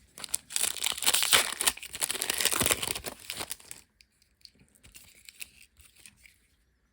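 A trading-card pack's wrapper being torn open and crinkled for about three and a half seconds, then faint rustling as the pack is handled.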